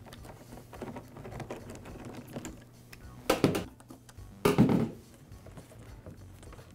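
Hand tools loosening the hose clamps on a backpack blower's rubber intake tube: light clicking and scraping of a nut driver and screwdriver on the clamps, with two louder knocks about three and a half and four and a half seconds in as the tube and tools are handled.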